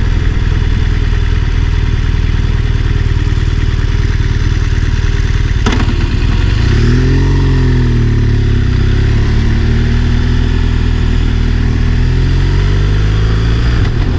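BMW R1200RS boxer-twin engine running under way, with wind rush. Its pitch rises and falls about seven seconds in and climbs again near the end, and there is a short click just before the first rise.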